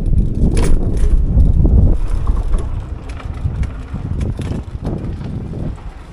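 Wind buffeting the microphone as a loud low rumble while riding a Teverun Fighter 11 electric scooter over a rough dirt path, with sharp knocks and rattles from the scooter going over bumps, the clearest about half a second and one second in and a few more around four to five seconds. The rumble eases in the second half.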